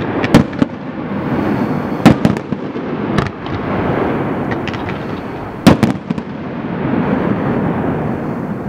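Aerial fireworks display: sharp bangs of shells bursting, in clusters about two seconds in and again near six seconds, over a continuous crackle and rumble that fades near the end.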